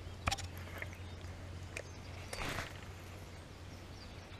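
A faint click, then about two and a half seconds in a short rushing whirr of a baitcasting reel paying out line as a frog lure is cast.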